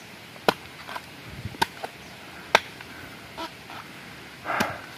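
Machete chopping into the husk of a sprouting coconut: a series of sharp, irregular strikes, about eight in five seconds, the last the heaviest.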